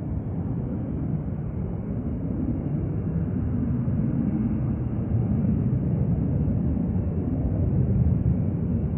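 Distant low jet rumble from the Delta Embraer E175's twin turbofans on its takeoff roll, growing steadily louder.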